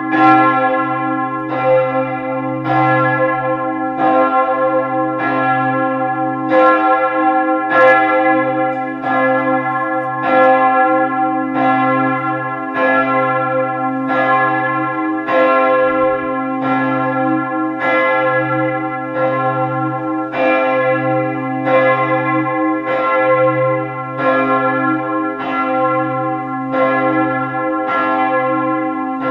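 Bell 1, the largest bell of the Neumünster church, swung and ringing alone, striking about once a second over its steady low hum. This is the Vorläuten, the single-bell ringing that comes ahead of a church service.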